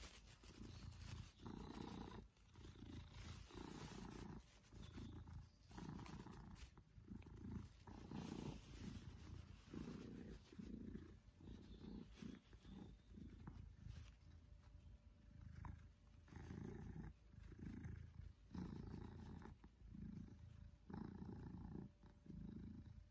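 Maine Coon cat purring close up while being cuddled. The purr rises and falls with its breathing, in swells about once a second.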